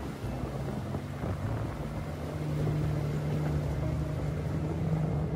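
Off-road 4x4's engine running steadily at low trail speed, a low drone that grows a little louder about halfway through.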